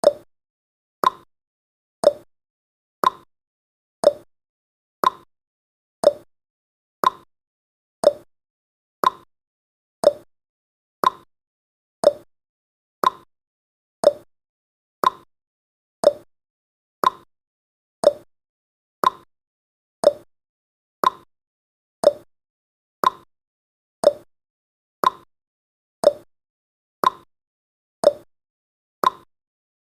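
Countdown timer's ticking sound effect: a short, sharp tick exactly once a second, each dying away quickly, with silence between.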